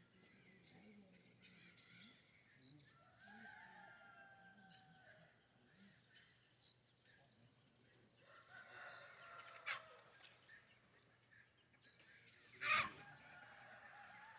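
Rooster crowing, faint: two long crows, one about three seconds in and another about eight seconds in. A sharp knock near the end is the loudest sound.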